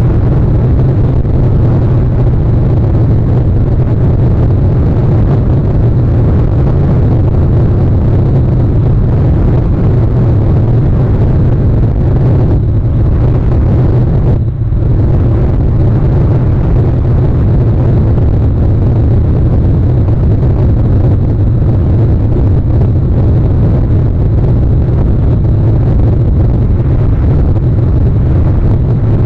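Loud, steady low rumbling noise with no distinct events, dipping briefly about halfway through.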